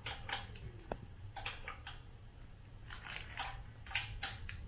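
Handling noises from the bicycle's handlebar and its plastic wrapping as the bars are set straight: about half a dozen short clicks and rustles, irregularly spaced.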